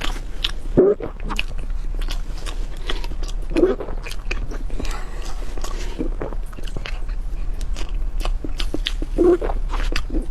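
Close-up mouth sounds of someone eating soft chocolate mousse cake: wet chewing and lip smacks, many small clicks, with a few short voice sounds in between.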